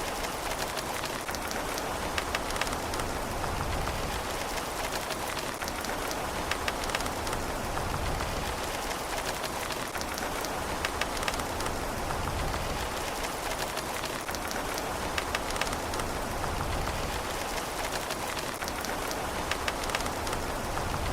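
Steady rain falling on a surface, with many individual drops ticking sharply through an even hiss and no thunder.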